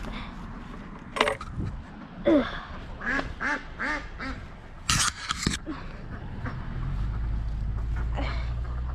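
Domestic ducks quacking: a string of short separate calls, several of them loud and harsh about five seconds in. A low steady rumble comes in near the end.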